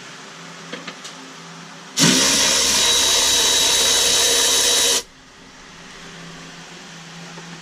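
Cordless power driver fitted with a 13 mm socket, spinning out a bolt for about three seconds with a steady high whine; it starts and stops abruptly.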